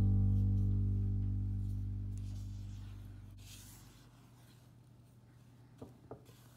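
Background guitar music: a last chord rings out and fades away over about four seconds, leaving near silence broken by a few faint taps near the end.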